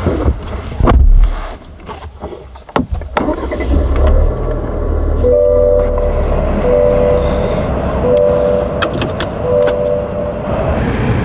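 Inside the cab of a moving 2024 GMC Canyon: a few knocks and clicks in the first three seconds, then steady engine and road rumble. Over the rumble the truck's two-note chime sounds four times, about a second each, with the touchscreen's 'focus your attention on driving' alert.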